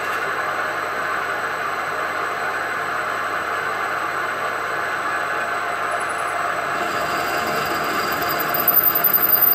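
CNC mill drilling into an induction-hardened cast-iron lathe bedway: a steady rushing cutting noise, with a high thin squeal from the drill coming in about seven seconds in and the sound starting to pulse near the end.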